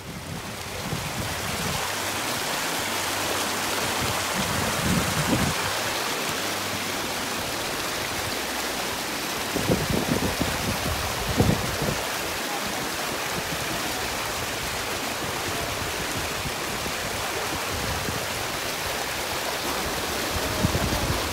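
Thermal spring water rushing steadily along a travertine channel, with a few low bumps around the middle.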